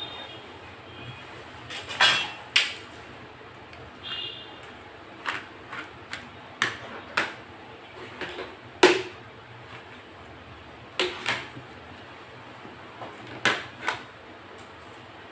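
Objects such as a TV remote being picked up and set back down on a wooden TV stand while dusting: about a dozen light knocks and clacks, several in quick pairs, with a brief high squeak about four seconds in.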